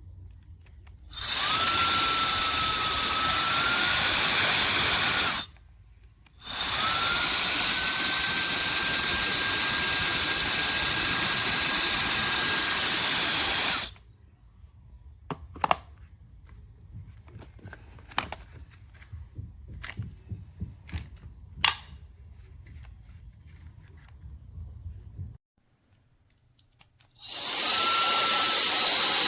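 Mini ionic hair dryer's high-speed motor blowing: a steady rush of air over a high motor whine that rises in pitch as it spins up. It runs for about four seconds, stops briefly, runs again for about seven seconds, then gives way to a few light clicks before starting up again near the end.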